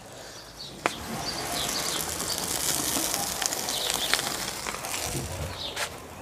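Food sizzling in hot oil in a frying pan: a sharp clack about a second in, then a steady sizzle that fades near the end.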